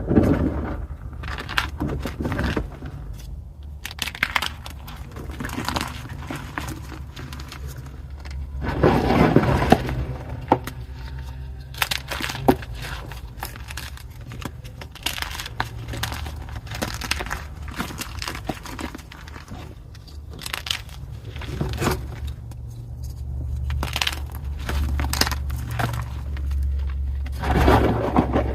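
Pieces of gym chalk (magnesium carbonate) being crushed and crumbled: a run of dry crunches and crackles, with louder crunches about a second in, around nine seconds in and near the end.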